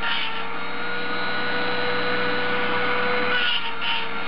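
High-speed hand-held rotary tool running with a steady whine, its burr grinding and shaping the exhaust port of a Mazda 13B aluminium rotor housing.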